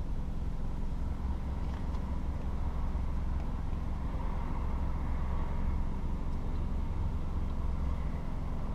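Steady low rumble of a vehicle in motion, even throughout with no sharp events.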